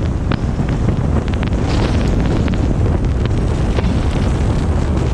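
Heavy wind buffeting on the microphone of a camera outside a moving vehicle's window, with scattered sharp ticks through it.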